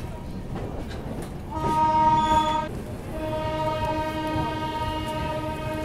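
Indian Railways train horn sounding twice over the rumble of a train on the tracks: a short blast about a second and a half in, then a long steady blast from about three seconds in.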